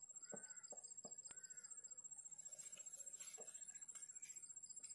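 Near silence: faint outdoor ambience by a lake, with a couple of faint bird chirps in the first second or so.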